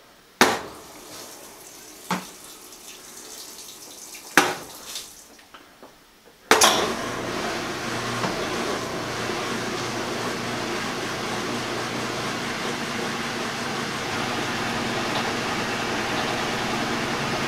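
Top-loading washing machine starting its drain about six and a half seconds in: the drain pump comes on suddenly and runs steadily, a low hum under rushing water. Before it, a few sharp knocks.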